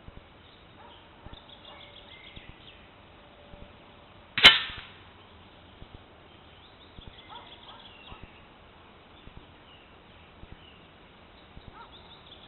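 A single sharp shot about four and a half seconds in from a 5.5 mm Егерь SP air rifle, ringing off briefly. Birds chirp faintly in the background.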